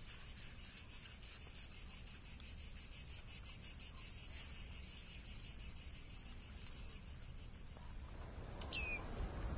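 Cricket-like insect chirping: a high, fast, even trill of about eight pulses a second that fades out about eight seconds in. Near the end comes a single short falling chirp.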